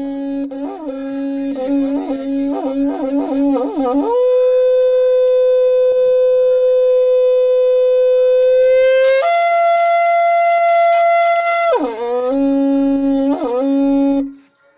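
A Naga buffalo horn blown in one long call. It opens on a low note broken by rapid warbling bends, settles about four seconds in onto a long steady note, and jumps to a higher held note about nine seconds in. It then falls back to the low warbling note and cuts off shortly before the end.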